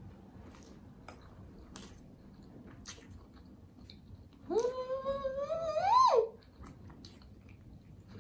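Faint wet chewing clicks from a mouthful of pretzel-bun cheeseburger, then about four and a half seconds in a woman hums a long closed-mouth "mmm" of enjoyment while chewing, its pitch rising at the end.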